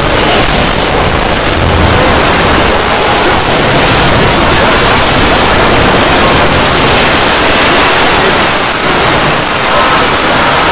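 Very loud, heavily distorted audio that comes through as a steady, even rush of noise across the whole range, with no clear tones or rhythm.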